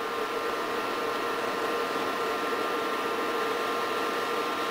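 Sun Ultra 10 workstation running, its cooling fans giving a steady whir with a few unchanging whining tones over it.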